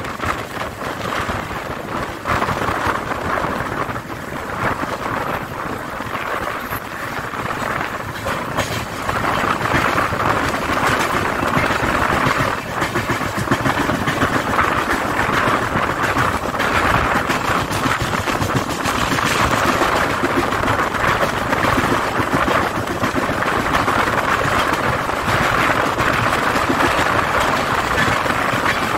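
A moving Indian Railways passenger train heard from an open coach door: steady running noise of the coaches with rapid clicking and clattering of wheels over the rails throughout.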